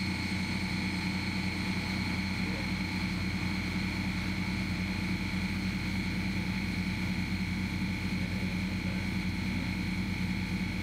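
Steady machinery drone of a patrol craft under way, with a low, fast, even pulse and a thin high whine that stay constant throughout.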